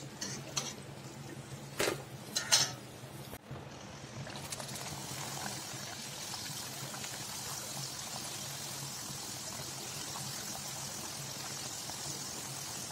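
A few metal clinks of a slotted steel spoon against a steel kadai, then steady sizzling of raw papdi dough rounds deep-frying in hot oil. The sizzle starts about four seconds in and holds.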